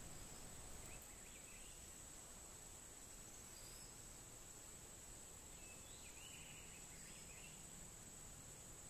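Near silence outdoors, with a steady high-pitched insect drone and a few faint bird chirps.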